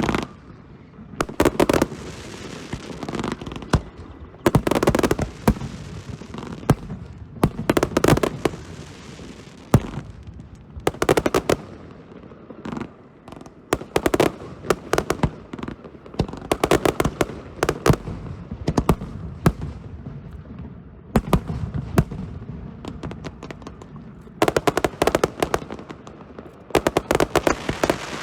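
Fireworks display: volleys of sharp bangs and rapid crackling bursts arriving in clusters every few seconds, with short lulls between them.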